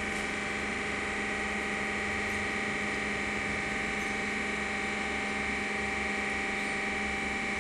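Steady machine hum holding several constant tones, unchanging in level.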